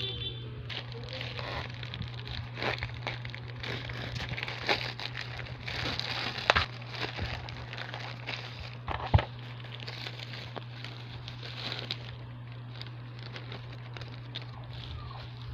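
Plastic packaging crinkling and rustling as a plastic courier mailer is torn open and the clear plastic bag inside is handled, with a few sharper crackles in the middle, over a steady low hum.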